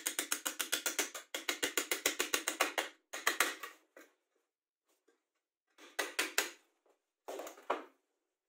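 Hammer blows driving a metal pin into a wooden leg: rapid, even runs of taps, two long runs in the first three seconds, then shorter bursts about six and seven and a half seconds in.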